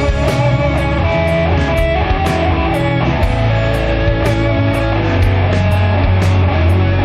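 Doom metal music: heavily distorted electric guitars and bass over drums, with cymbal hits about twice a second.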